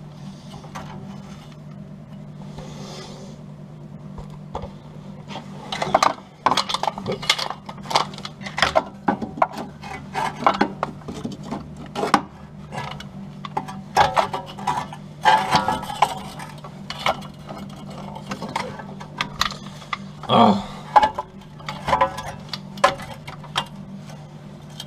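MIG welder laying short, crackling bursts of weld, stitch-welding upside down at a low setting to fill a hole in a steel wing lip. The bursts come irregularly after the first few seconds, over a steady low hum.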